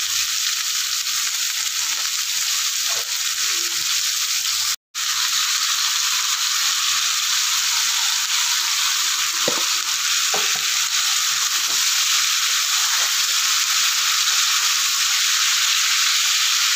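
Oil sizzling steadily in a pan as sliced bitter gourd and onion fry, with a few light scrapes of a spatula stirring. The sound drops out for a moment about five seconds in.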